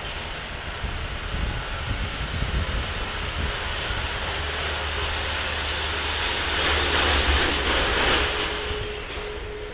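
Airbus A320neo's CFM LEAP-1A turbofan engines running at taxi thrust: a steady jet hiss that swells about seven seconds in, with a steady hum joining near the end.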